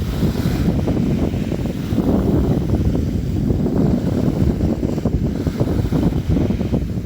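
Sea waves splashing and washing in a continuous low rumble, with a brief brighter hiss of spray near the start and wind buffeting the microphone.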